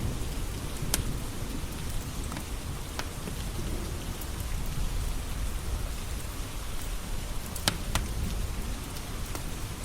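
Steady rain with a low rumble underneath, and a few sharp crackles and pops from a wood fire, the loudest pair near the end.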